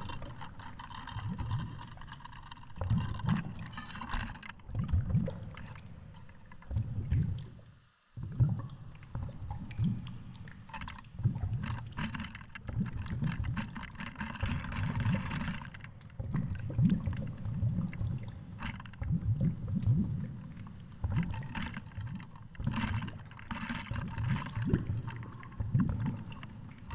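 Muffled underwater noise picked up by a GoPro HERO7 Black in its housing hanging on a fishing line: irregular low rumbling thumps with scattered clicks and hiss as water moves around the camera. The sound drops out briefly about eight seconds in.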